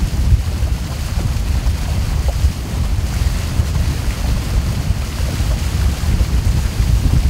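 Wind buffeting the microphone over the rush of water along the hull of a river boat under way: a steady, heavy low rumble.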